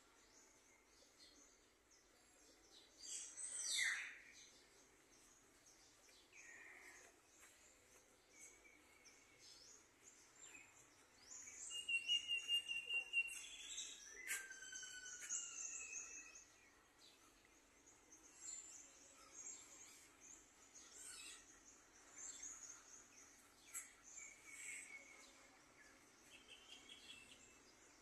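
Birds chirping and calling, faint: many short high chirps with a few louder whistled calls, the busiest run of them about twelve to sixteen seconds in.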